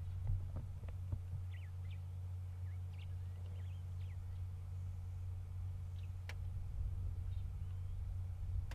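Low steady hum of an idling game-drive vehicle engine, with faint short bird chirps in the first half and a few light clicks.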